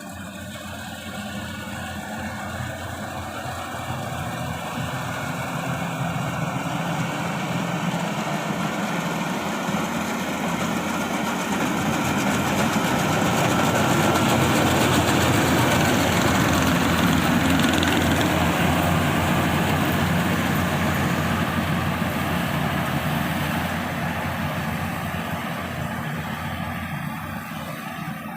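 Yanmar YH850 combine harvester's diesel engine and threshing machinery running steadily while it harvests rice. The sound grows louder toward the middle and then fades, as the machine passes close by and moves away.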